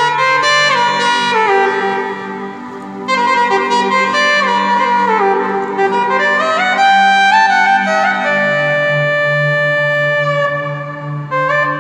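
Yamaha 3000 Oriental arranger keyboard playing an oriental-style melody on a lead voice over a held low chord. The melody runs down and back up in quick steps, and the low chord changes about eight and a half seconds in.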